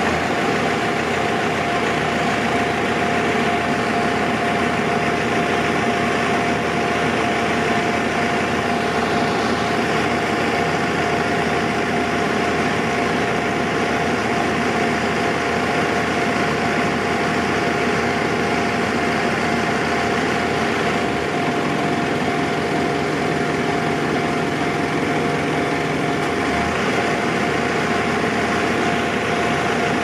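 Japanese railway level-crossing alarm ringing steadily with the barriers down, with cars idling as they wait.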